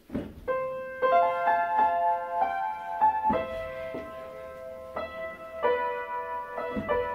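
Piano playing a melody of single notes and chords that ring on. It starts about half a second in.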